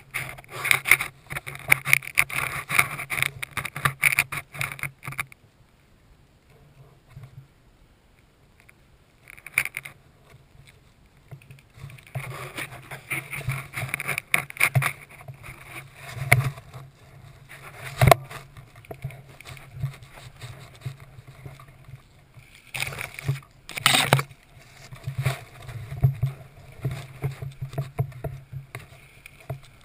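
Bursts of rustling and crackling movement noise on the microphone, with quieter stretches between them, and a sharp click about 18 seconds in and another about 24 seconds in.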